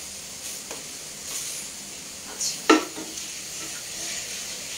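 Whole garam masala spices and cardamom sizzling steadily in oil in a pot on a gas burner, stirred with a wooden spatula, with one sharp knock of the spatula against the pot a little past halfway. The spices are being fried until they turn dark, ready for the beef.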